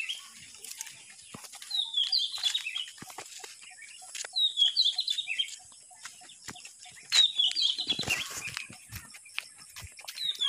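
A bird singing a short, high, chirpy phrase that falls in pitch, four times at intervals of about three seconds, with faint scattered clicks and rustles between.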